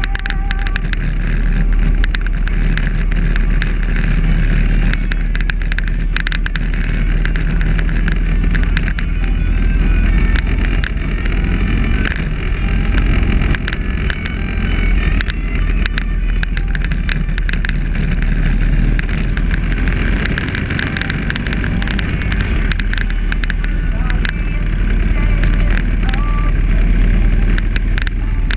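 Cruiser motorcycle engine running steadily at road speed, with wind buffeting a handlebar-mounted microphone.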